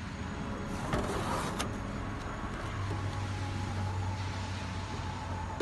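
A motor vehicle's engine running steadily, its low hum growing stronger about three seconds in. About a second in there are two short crackles from painter's tape being peeled off the car's paint.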